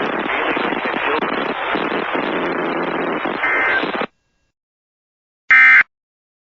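Loud, crackling radio static that cuts off abruptly about four seconds in. After a second and a half of silence comes one short, harsh electronic data burst: the first of the Emergency Alert System's end-of-message (EOM) tone bursts that close an alert.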